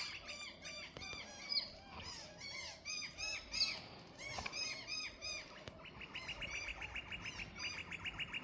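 Birds chirping: repeated short, arched chirps, then from a little past halfway a fast, even run of short notes, about eight a second.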